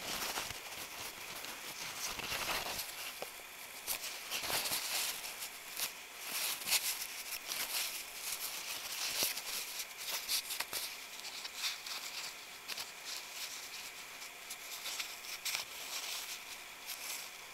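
Paper towel rubbing and crinkling as it wipes thermal grease off a small diode, in irregular scratchy strokes.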